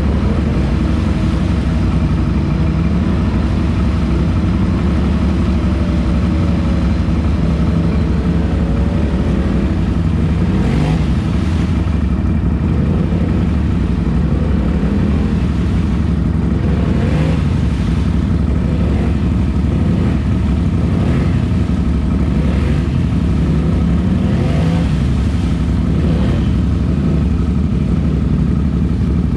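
Lifted Polaris ATV on portal gear lifts running hard at steady revs while its mud tyres spin and churn in deep mud and water.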